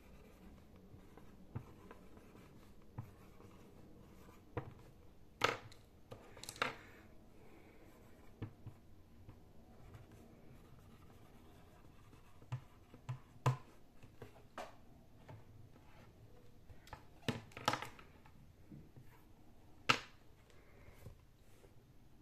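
Dry-erase marker writing on a small plastic-framed whiteboard: scattered short scratchy strokes and a few sharp taps, with pauses between words.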